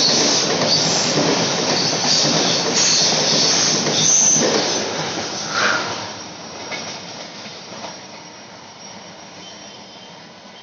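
Kolkata-Balurghat Express coaches running past on a curve, wheels rattling on the rails with short high-pitched squeals now and then. The sound falls away from about six seconds in as the last coach passes and the train recedes.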